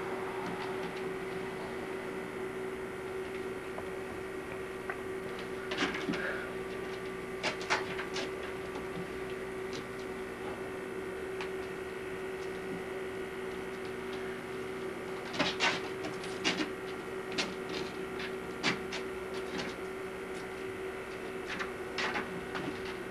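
A kitten's claws scrabbling and gripping on a hanging wicker wall ornament as it climbs and bats at a ribbon toy, giving scattered crackling clicks and creaks of the wicker, busiest about two-thirds of the way through. A steady hum runs underneath.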